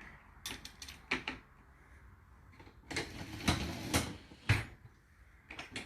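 Knocks and clatters of dishes and dishwasher racks being handled while the dishwasher is loaded, in a few separate bursts with a busier cluster in the middle.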